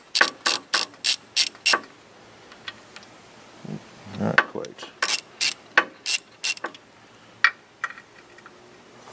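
Socket ratchet clicking in quick runs of strokes, about four clicks a second, as a steering-box mounting bolt is backed out of a truck frame. There are two runs with a pause between them and one lone click near the end.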